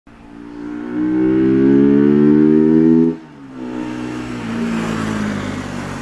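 Bajaj Pulsar RS200 single-cylinder motorcycle engine, breathing through a K&N conical air filter, accelerating hard. The revs climb steadily, fall sharply just after three seconds as it shifts up, then climb again more quietly.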